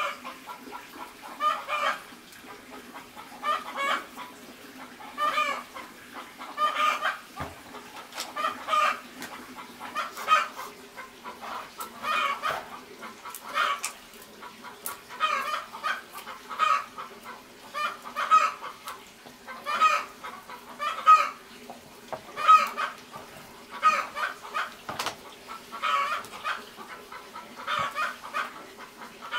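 Chicken clucking, a short call about every second and a half throughout, over a faint steady hum, with a couple of soft knocks.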